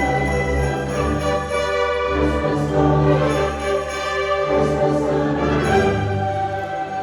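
High school string orchestra playing a holiday piece, sustained chords moving from note to note.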